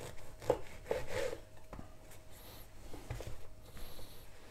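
A serrated bread knife sawing through a loaf of bread on a wooden cutting board: a few soft scraping strokes in the first second and a half, then a few light knocks of the knife and slices on the board.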